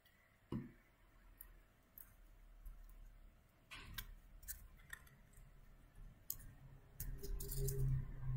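Faint handling sounds of paper craft work: scattered small clicks and soft rustles as a glue stick is used and little paper cut-outs are pressed into place, with a louder stretch of handling noise near the end.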